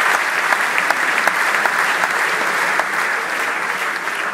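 A large theatre audience applauding, a dense steady clapping that begins to die down near the end.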